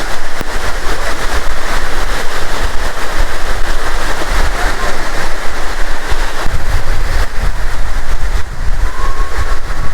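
Latourell Falls roaring steadily close by, with wind buffeting the microphone in a gusty low rumble.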